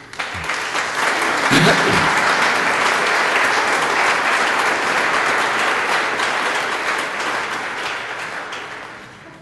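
An audience applauding, a crowd of many people clapping: it swells within the first second, holds steady, and dies away over the last couple of seconds.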